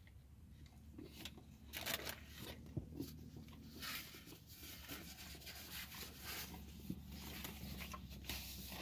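Faint sounds of a person biting into and chewing a barbecue burger with onion rings: soft crunching and rustling at irregular moments over a low steady hum.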